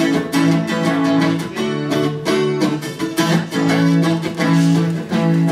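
Guitar strumming chords in a steady rhythm, an instrumental bar of a live pop song between sung lines.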